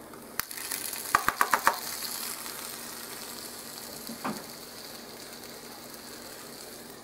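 Freshly flipped chicken breast sizzling in a hot Range Mate microwave grill pan, the sizzle slowly dying down. About a second in, a quick run of about five sharp taps, spatula against the pan.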